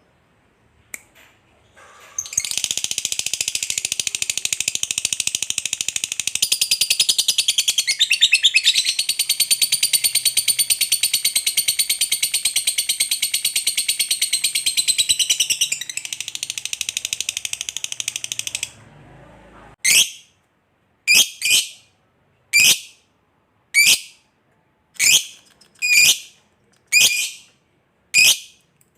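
Lovebird 'ngekek panjang': a long, unbroken chattering trill of rapid high notes lasting about sixteen seconds, then a string of separate sharp chirps, each falling in pitch, about one a second.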